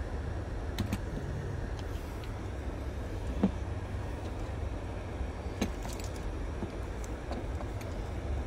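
Plastic wiring-harness connectors clicking and rattling as they are handled and unplugged, a few separate sharp clicks with the loudest about three and a half seconds in, over a steady low rumble.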